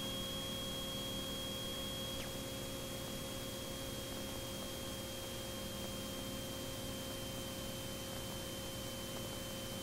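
Beech T-34 Mentor's engine heard as a steady drone during a full-power climb, with a thin high whine running over it, picked up through the aircraft's intercom with electrical hum and hiss.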